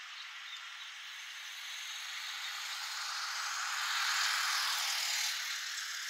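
A car passing on a wet road: tyre hiss that swells to its loudest about four seconds in, then eases a little.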